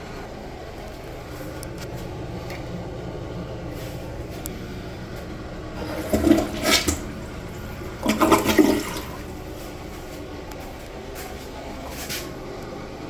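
Members Mark dual-flush toilet with water running steadily, and two louder surges of rushing water about six and eight seconds in.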